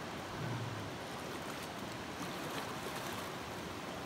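Steady rush of water from a shallow, stony-bedded river flowing and rippling over rocks.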